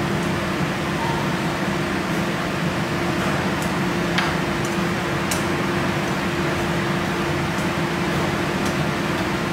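Steady fan hum of a kitchen range hood running, with a constant tone in it. A few light clicks over it, the clearest about four and five seconds in.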